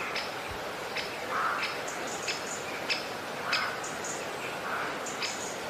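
A tiny metal spoon stirring chopped onion and tomato in a miniature clay pot, scraping and clicking against the pot every half second or so, over a steady hiss.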